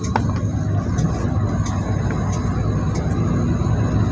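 Steady low rumble of a coach bus running, heard from inside the passenger cabin.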